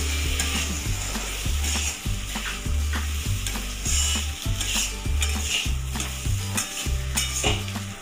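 Rice, spice paste and chopped tomato sizzling in hot oil in a metal pot while being stirred and scraped with a spatula, with irregular scrapes over the steady sizzle.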